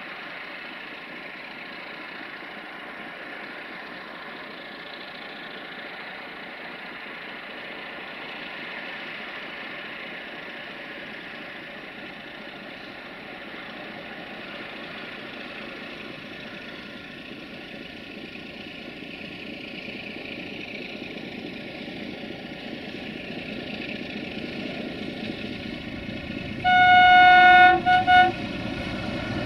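Diesel-electric freight locomotive sounding its horn twice near the end: one blast of about a second, then a short one. Before the horn there is a steady running noise that grows louder over the last ten seconds.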